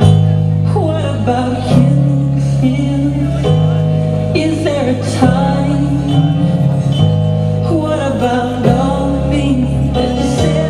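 Pop dance music with singing over held bass notes that change every second or two.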